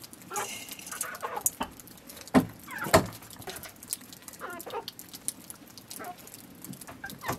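A flock of chickens clucking as they feed, with short calls scattered throughout, the loudest a couple of sharp calls about two and a half and three seconds in.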